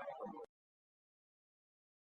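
The end of a male voice's Quran recitation fades out within the first half second, followed by complete silence.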